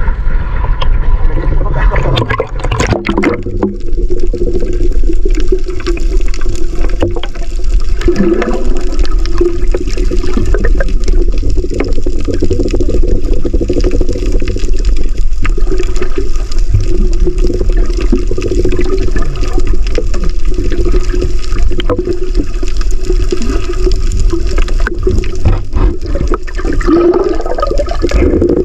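Water sloshing at the surface for about three seconds, then the muffled rushing and bubbling of water heard with the microphone underwater.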